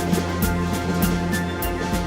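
Instrumental music with sustained held notes over a steady percussive beat.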